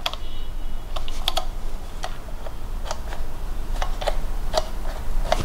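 Light plastic clicks, irregular, about one or two a second, from fingers working the buttons of an RC pistol-grip transmitter and handling the plastic body of a WPL 1/16 toy truck. A short faint high beep sounds just after the start, and a low steady hum runs underneath.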